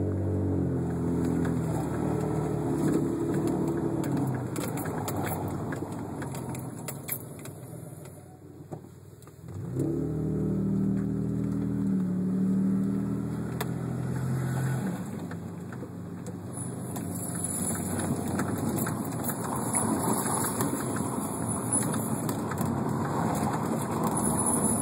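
Subaru SVX's flat-six engine and road noise while driving; the engine note drops off to a brief lull before the middle, then picks up again. A faint high-pitched ring comes in over the last third.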